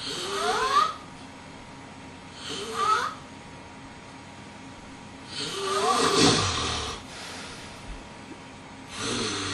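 A person snoring in an odd way: four snores at uneven intervals, each with a squeaky tone rising in pitch. The third is the longest and loudest and has a low rumble under it.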